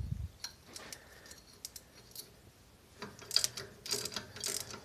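Ratchet wrench clicking as the connecting-rod cap bolts on the crankpin are undone, after a few faint metal taps; the quick clicking starts about three seconds in.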